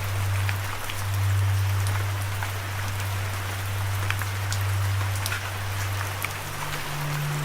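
Steady rain with scattered individual drops ticking, over a low sustained drone that steps up to a higher pitch near the end.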